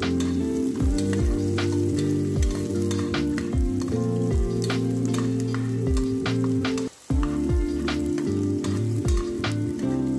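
Chopped onion and garlic sizzling in oil in an aluminium pot, stirred with a spoon, over background music with a steady bass and beat. All sound cuts out briefly about seven seconds in.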